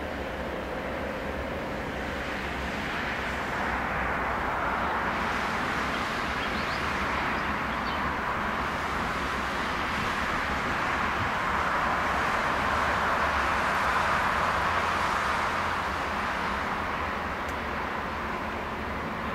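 Noise of a passing vehicle that swells gradually over about ten seconds and eases off near the end, over a low steady hum.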